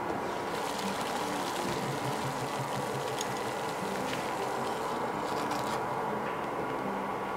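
Water at a rolling boil in a stainless steel stockpot, bubbling steadily, with a few faint ticks.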